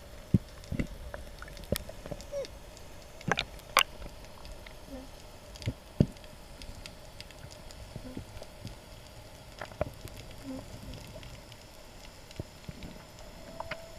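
Underwater ambience picked up by an action camera in its waterproof housing: scattered sharp clicks and knocks at irregular intervals over a faint steady hum.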